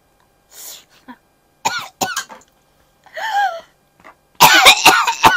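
A woman coughing and clearing her throat in short separate fits, with the loudest and longest fit near the end, as she fakes a bone stuck in her throat.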